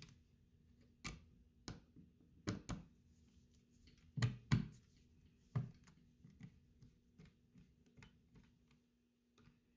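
A screwdriver unscrewing the outer band screw of an SMLE Mk III* rifle. It makes a string of irregular metal clicks and light knocks, the louder ones in the first six seconds, then fainter ticks.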